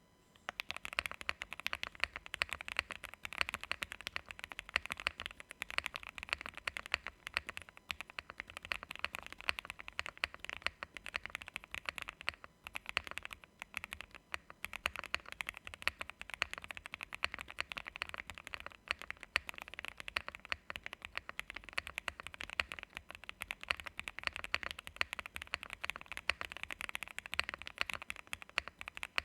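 Steady fast typing on a JRIS65 mechanical keyboard with Gateron Oil King linear switches, PBT keycaps, TX stabilizers and a fully foamed case: a dense run of keystrokes with a brief pause about twelve seconds in.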